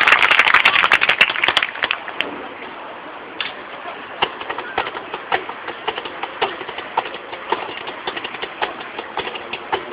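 Crowd cheering dies away over the first two seconds. After that a marching-band drumline's stick clicks keep a steady beat, a bit under two clicks a second.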